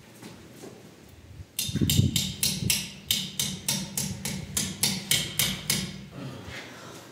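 Hammer driving a nail to pin a blanket up over a window: a quick, even run of sharp strikes, about four a second, starting about a second and a half in and fading away near the end.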